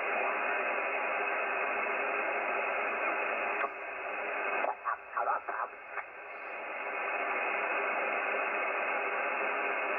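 Shortwave communications receiver, the JRC NRD-545, playing band noise through its speaker: a steady hiss held between a low and a high cutoff by its single-sideband filter. Around the middle the hiss drops back for a couple of seconds with a few short fragments as the tuning moves, then comes back up.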